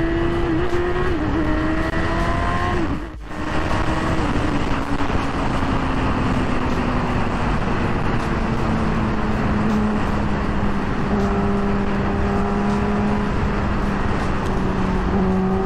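Yamaha R6's 599 cc inline-four engine through an Akrapovic full exhaust, heard while riding. It climbs in revs for about three seconds, drops out briefly at a gear change, then holds a steady drone that slowly sinks in pitch and climbs again near the end, under constant wind rush.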